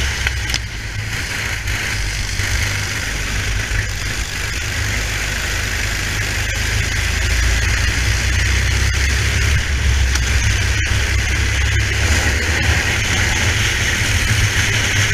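Racing kart engine running steadily under load, recorded onboard the kart, with a steady hiss over it; it gets a little louder about halfway through.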